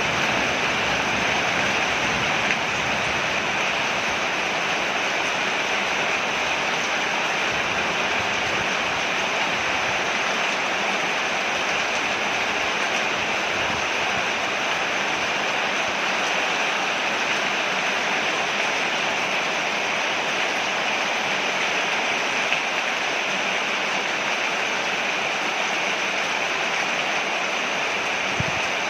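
Rain falling steadily on a porch, an unbroken even hiss.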